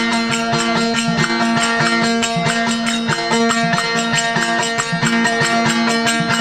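Instrumental interlude of a Marwari desi veena bhajan, played between sung verses. A steady drone note is held under a shifting melody line, over a quick, steady percussion beat.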